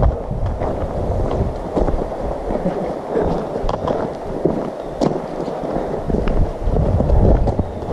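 Footsteps crunching on loose gravel as two people walk, with low rumbling wind and handling noise on the microphone, stronger near the start and end.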